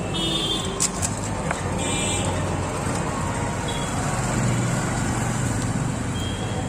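Street ambience: a steady low hum of road traffic, with a few faint clicks about a second in.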